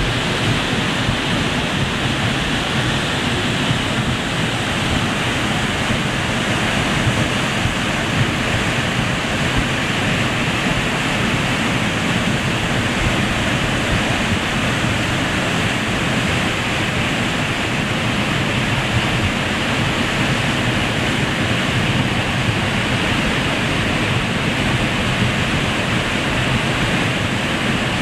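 A creek in flood: fast muddy floodwater rushing in a loud, steady torrent.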